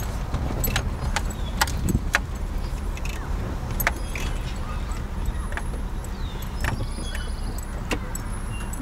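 Steady low rumble of the lifted 1992 Jeep Wrangler Renegade's engine and road noise heard inside the cab, with scattered sharp clicks and rattles.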